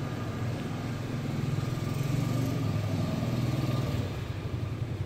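A small engine idling with a steady low hum, getting a little louder about two seconds in.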